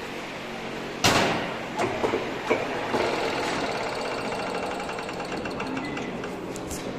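Heavy-duty lathe: a loud metallic clunk about a second in, then a few knocks and a steady rattling of its running mechanism that slowly fades over a low motor hum, with two small clicks near the end.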